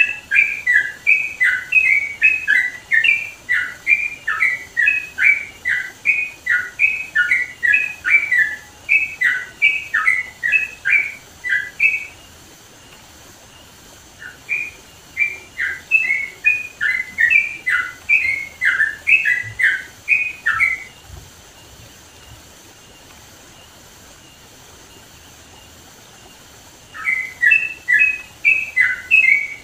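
Yellow-vented bulbul (trucukan) singing loudly: fast runs of short whistled notes, several a second. The song breaks off about twelve seconds in, resumes for several seconds, and pauses again before starting up near the end.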